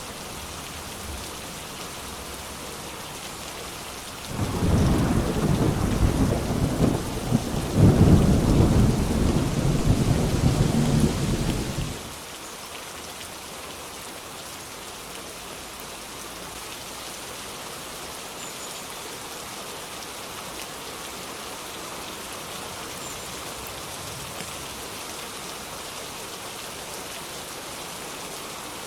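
Steady rain with a long roll of thunder that starts a few seconds in, swells to its loudest midway and lasts about eight seconds before cutting off suddenly.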